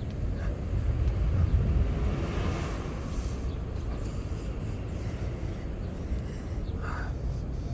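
Outdoor background noise: a low, uneven rumble, swelling a little in the first few seconds.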